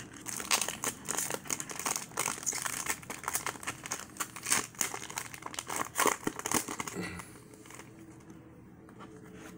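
Foil trading-card pack wrapper being torn open and crinkled by hand: a dense, irregular crackling rustle that dies down about seven seconds in.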